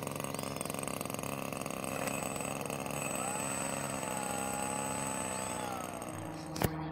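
Radio-controlled F4U Corsair model's motor spinning up its three-blade propeller about three seconds in, running with a steady whine, then winding down; a sharp click just before the end.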